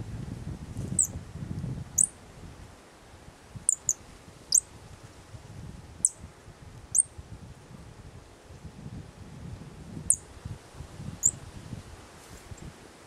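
Thrushes giving thin, high, sharp flight calls, about ten short notes spread across the seconds, over low rustling.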